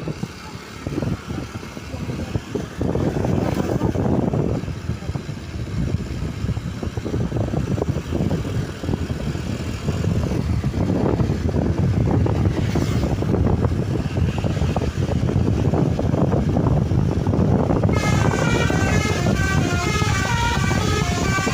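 Low, rough vehicle rumble, then near the end a bus's Basuri telolet horn, a set of multi-tone air horns, starts playing a tune of high tones stepping up and down.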